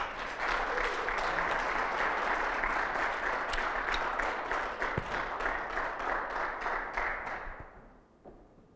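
A congregation applauding, many hands clapping steadily, then dying away near the end.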